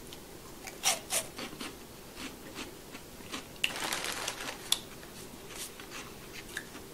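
Crisp snack pieces crackling and crunching as they are handled and eaten, in irregular clicks, with a denser rustling stretch about four seconds in.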